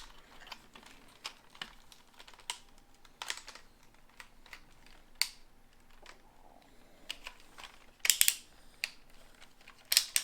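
Plastic parts of a vintage Bandai White Tiger Zord toy clicking and snapping as it is pushed into beast mode, its 30-year-old joints a little stiff. Light scattered clicks, with a louder cluster about eight seconds in and another near the end.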